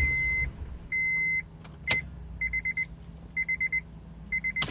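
Electronic beeping from the car: a steady high-pitched tone sounding as two long beeps, then three bursts of rapid short beeps, with a single sharp click about two seconds in.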